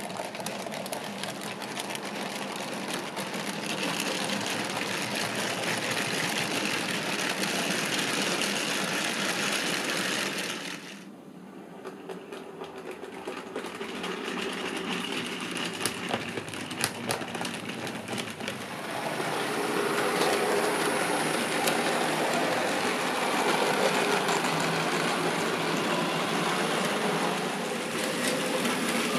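Model railway locomotives running on the track: the whine of their small electric motors and the rattle and clicking of wheels over the rails. The sound dips briefly about a third of the way in and grows louder from about two-thirds of the way through.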